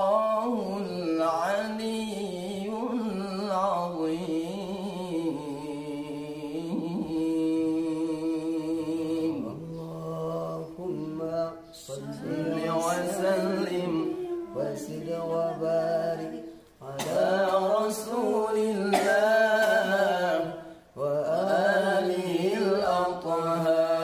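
Unaccompanied Qur'an recitation in melodic tilawah style: a voice singing long, ornamented, wavering phrases, with short breaks for breath between them.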